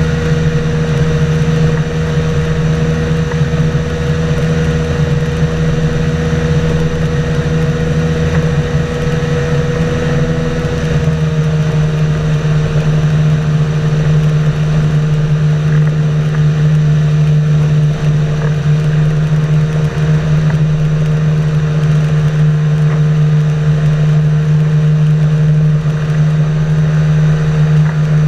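Boat engine running steadily at a constant speed. About eleven seconds in, its tone steps slightly lower and some of the lower hum drops away, then it holds steady again.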